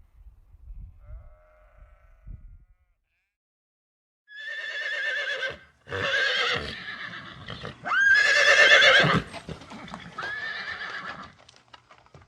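A farm animal calls four times, each call long and wavering, the third starting with an upward swoop. A few faint low thumps and one faint call come before the calls.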